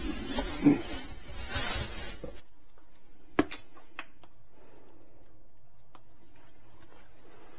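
Plastic bag and corrugated drain hose rustling and scraping as they are pulled out from under a kitchen sink cabinet, for about two and a half seconds. Then a few sharp clicks of equipment being handled over a faint steady hum.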